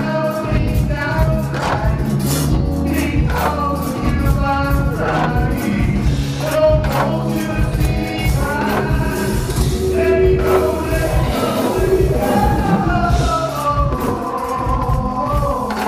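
A man sings into a handheld microphone over a live soul band. His voice slides and holds notes above a steady bass-and-drum groove.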